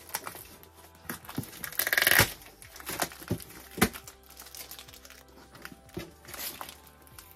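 Packaging crinkling and tearing as it is handled, with a louder tearing rustle about two seconds in and scattered knocks, over background music.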